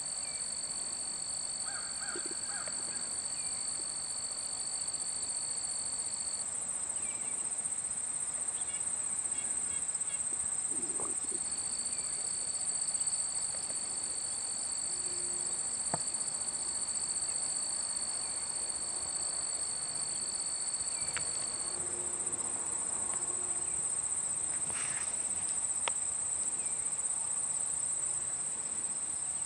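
Insects stridulating: a steady, high-pitched continuous trill, joined by a second, slightly lower steady trill that stops about six seconds in and starts again a few seconds later.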